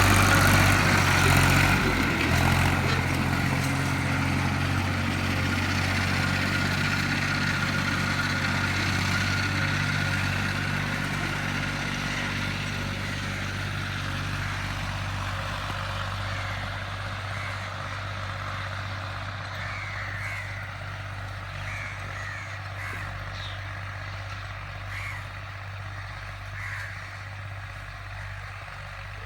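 Tractor engine running steadily while ploughing, fading gradually as it moves away. Birds call repeatedly in the second half.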